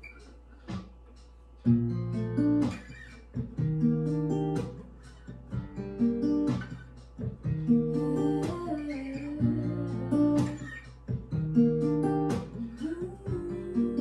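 Acoustic guitar playing the intro of a song, chords picked in a steady rhythm. The playing starts about two seconds in, after a few soft knocks.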